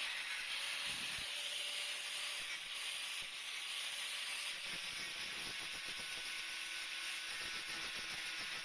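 Stick-welding arc from a 6013 rod: a steady crackling sizzle that runs evenly throughout.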